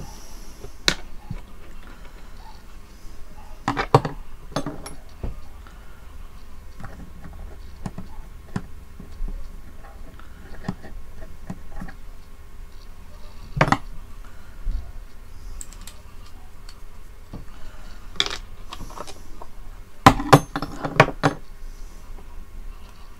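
Small metal antenna parts and wire handled by hand: scattered sharp clicks and light metallic clinks, with a quick cluster of several near the end.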